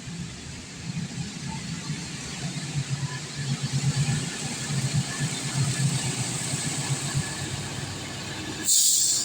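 Train passing with a low, uneven rumble, and a brief loud hiss near the end.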